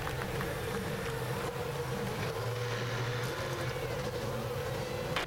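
Field of 2011 IndyCars' Honda 3.5-litre V8 engines idling together on the starting grid, just fired up after the start command: a steady, even drone.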